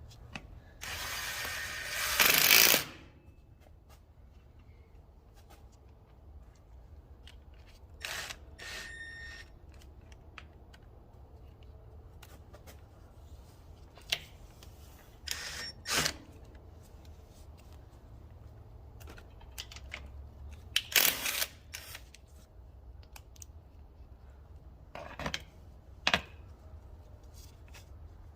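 Hand work with tools on tractor parts: a loud rough noise lasting about two seconds, then scattered light clicks and knocks of tools and parts being handled.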